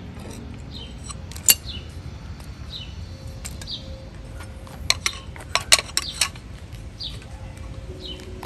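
Sharp metal clinks of tools and parts being handled, one about one and a half seconds in and a quick run of about five around five to six seconds in. A small bird chirps repeatedly in the background, short falling chirps about once a second.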